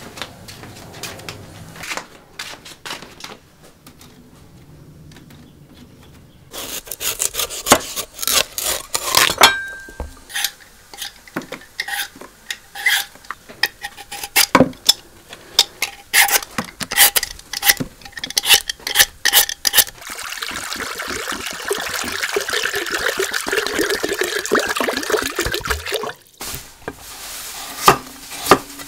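Repeated short scraping strokes of a metal vegetable peeler taking the skin off a watermelon rind over a plastic basin, then a denser run of steady scraping. Near the end a cleaver cuts into a cabbage on a chopping board with a few sharp knocks.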